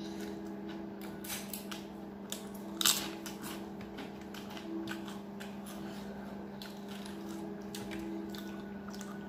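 Close-up eating sounds: chewing and moist mouth noises as chapati and sabzi are eaten by hand, with scattered small clicks of fingers and food against a steel plate. A sharper click about three seconds in is the loudest. A steady low hum runs underneath.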